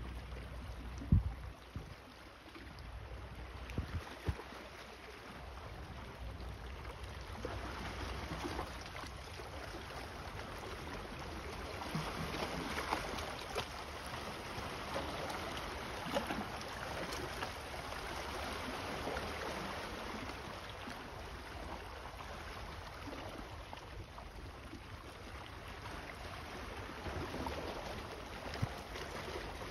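Small waves lapping and washing over a rocky shoreline, with wind rumbling on the microphone at first. A sharp knock about a second in, and a few light clicks a few seconds later.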